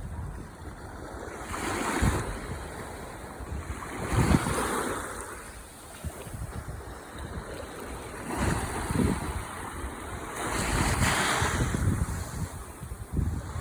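Ocean waves breaking and washing onto the shore: a steady rush of surf that swells four times as waves come in. Low wind rumble buffets the microphone underneath.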